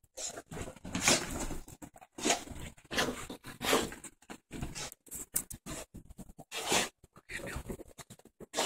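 A dog scrabbling and rubbing itself over a bed comforter after a bath, in irregular bursts of fabric rustling and paw scratching.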